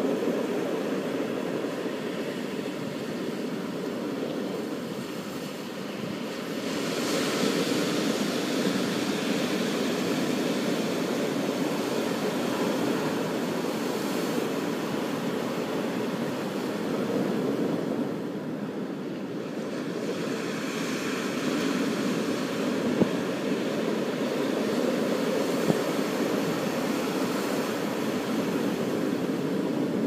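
Ocean surf washing onto a beach: a steady rushing noise that swells louder about seven seconds in and again around twenty seconds in.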